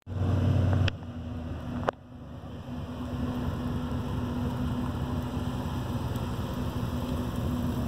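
Car driving slowly up, its engine running with a low rumble that grows steadily louder as it approaches. A short low hum and two sharp clicks come in the first two seconds.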